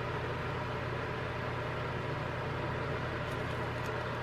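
Steady low hum and hiss of room background noise, with a few faint light ticks near the end.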